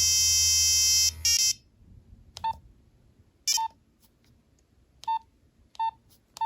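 Nokia 3390 monophonic ringtone playing as a bright, buzzy melody of single notes, cutting off about a second and a half in. Then the phone's short keypad beeps, five single beeps about a second apart, one for each key press.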